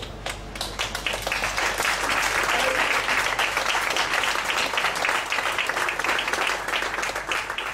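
Audience applauding: a dense, steady patter of many hands clapping that builds up in the first second and thins out near the end.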